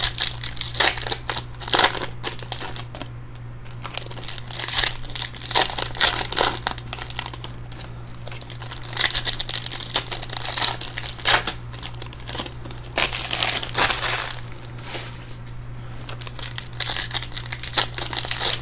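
Foil wrappers of Panini Select basketball card packs crinkling and crackling on and off as the packs are torn open and handled. A steady low hum runs underneath.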